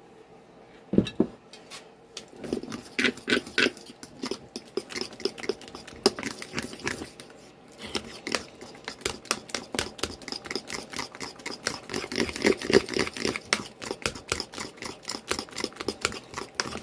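Fork whipping cornbread batter in a bowl: a fast, continuous run of clicks and scrapes against the bowl, after a single knock about a second in.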